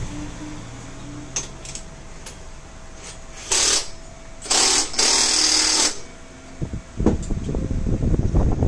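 Impact wrench run in three short bursts a few seconds in, rattling as it tightens a bolt at the bottom of a scooter's front fork during reassembly after a front shock rebuild. A few light clicks of handled parts come before it.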